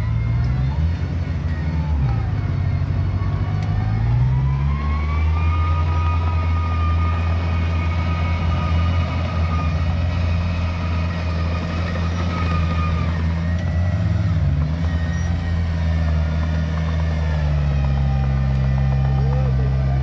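Diesel engine of heavy earthmoving equipment running hard, its pitch dipping and recovering several times as the load changes. A higher whine rises about four seconds in and fades out around two-thirds of the way through.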